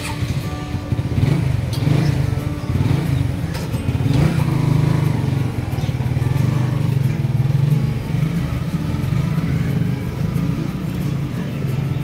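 A motor vehicle engine running steadily close by, with a low, even drone.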